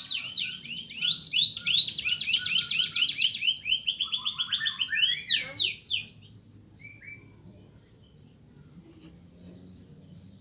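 Domestic canary singing fast trills of repeated rising notes, the song breaking off about six seconds in, followed by a pause with a few faint short chirps.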